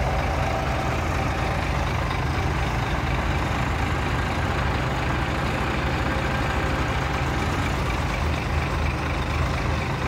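Heavy diesel engine running steadily with a low, even hum.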